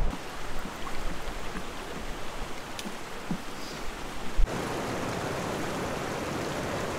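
Wind rumbling on the microphone with a few faint knocks. About four and a half seconds in it switches abruptly to the steady rush of ocean surf washing onto a sandy beach.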